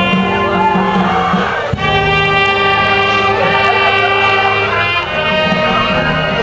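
Slow music of long held chords on brass instruments, the chord changing about two seconds in and again near the end.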